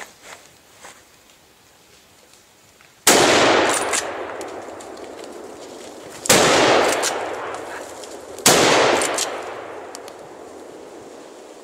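Three gunshots from hunting guns echoing through woodland. The second comes about three seconds after the first and the third two seconds after that. Each shot rings on and dies away over a couple of seconds.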